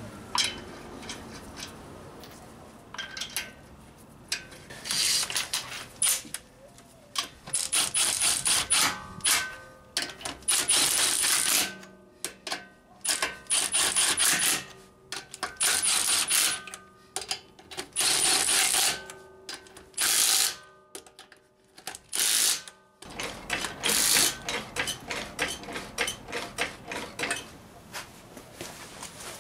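Cordless Milwaukee impact wrench fitted with a 100 ft-lb torque stick, running lug nuts onto a car wheel in repeated bursts of rapid hammering about a second long, with short pauses between them. This is the lug nuts being torqued down to spec, with the torque stick limiting the final tightness.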